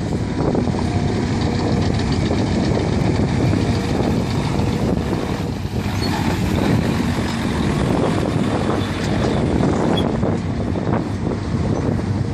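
Mercedes-Benz Actros four-axle dump truck's diesel engine running as it drives past close by, about halfway through, over the steady low running of hydraulic excavators at work.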